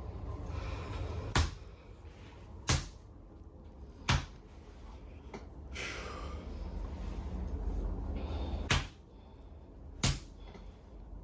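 Hammer blows on a patient's upper back during a percussive spinal adjustment: five sharp knocks. Three come in an even series about a second and a half apart, then after a pause of a few seconds two more come at the same pace.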